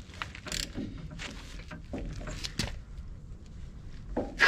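Scattered light clicks and knocks of metal tools and parts being handled, with one louder knock near the end.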